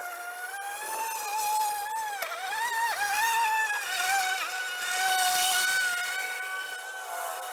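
Battery-powered EGO electric lawn mower running: a steady high motor whine whose pitch dips briefly a few times between two and three seconds in, with a hiss added in the middle.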